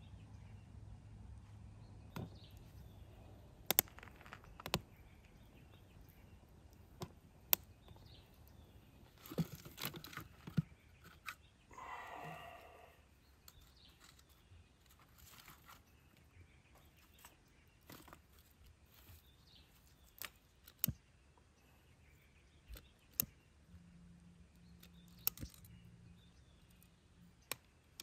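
Quiet forest ambience with scattered sharp clicks and snaps of dry kindling sticks being handled and set in a stone fire ring, busiest a little before the middle. A bird calls once near the middle.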